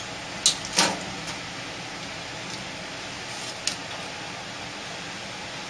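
Steady airflow hiss of a biosafety cabinet's blower, with two short crackles about half a second and a second in as a sterile pipette's plastic wrapper is peeled open, and a small click near four seconds.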